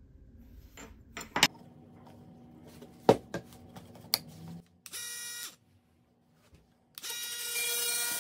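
Clicks and knocks of a Milwaukee Fuel oscillating multi-tool being handled. About five seconds in it runs for half a second and stops, then about seven seconds in it starts again and runs steadily with a loud buzzing hum, the blade oscillating in the air.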